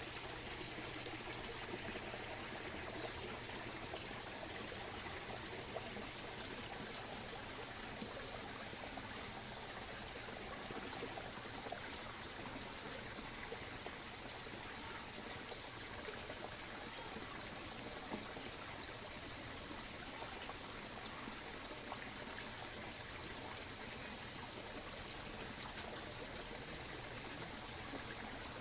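Small mountain river flowing steadily over rocks, a continuous trickling rush of water.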